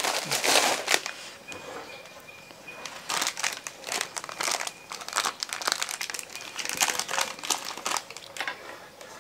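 Plastic snack packet crinkling as it is handled in the hands, in irregular crackles: louder in the first second, a quieter lull, then crinkling again from about three seconds in.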